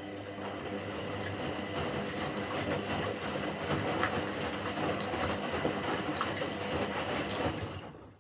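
Washing machine motor turning the drum: a steady hum under a busy rattle and clatter of the tumbling load, starting just before and dying away near the end as the drum stops.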